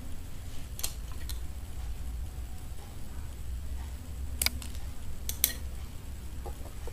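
Small scissors snipping nylon fishing line, trimming the tag end of a freshly tied knot: a few sharp clicks, the strongest three between about four and a half and five and a half seconds in, with fainter handling clicks near the start.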